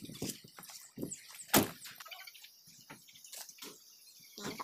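A Sinotruk HOWO mixer truck's cab door shutting with one sharp knock about one and a half seconds in, among lighter scattered clicks.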